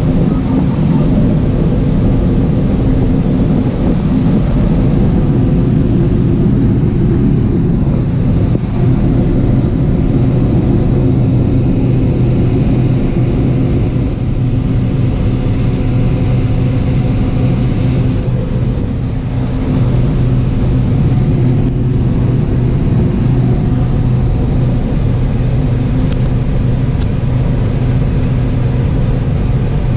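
John Deere combine running steadily while harvesting corn: a loud, even machine drone with a steady low hum. The sound eases slightly about two-thirds of the way through.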